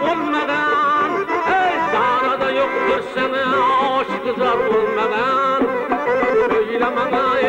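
Folk dance music with a melody instrument playing a wavering, ornamented tune over sustained accompaniment.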